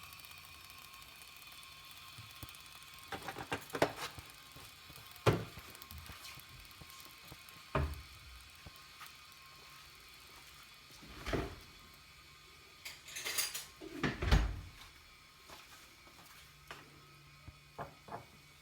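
Irregular knocks and clinks of kitchen utensils and cookware being handled, about ten in all, heaviest around the middle.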